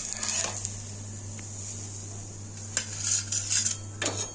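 Spatula scraping against the tawa and a steel plate while a semolina dosa is folded and lifted off: short bursts of scraping near the start and again about three seconds in.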